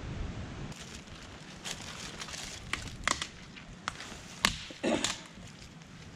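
Footsteps over dead sticks and twigs, with scattered snaps and cracks, the sharpest about four and a half and five seconds in. Low wind rumble on the microphone in the first moment.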